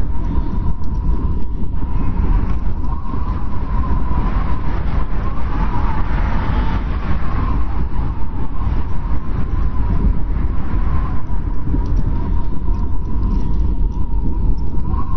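Snowstorm wind blowing steadily with a deep, continuous rumble and a thin, wavering whistle that swells and fades, strongest about halfway through.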